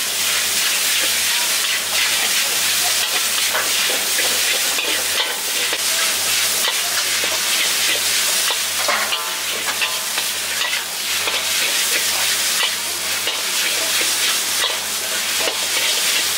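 Pad thai rice noodles sizzling in a hot wok while a metal spatula scrapes and taps against the wok, stirring and tossing them.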